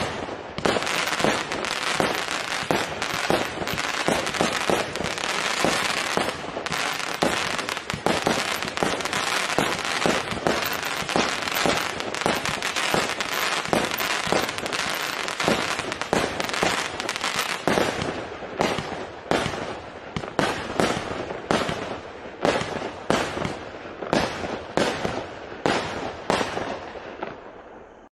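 A 168-shot, 0.8-inch calibre consumer firework cake firing: shots and bursts come fast and run together at first, then from about two-thirds of the way through they come singly, about two sharp bangs a second, until the cake finishes near the end.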